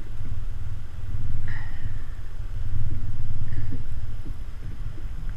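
Low, uneven rumble, with a few faint ticks and knocks over it. It is most likely wind buffeting the microphone of a GoPro Hero3 action camera.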